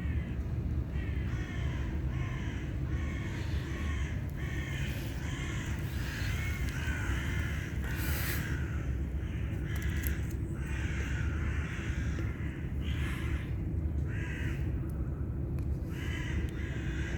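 A crow cawing over and over, short harsh calls about one or two a second, with a steady low rumble of background traffic underneath.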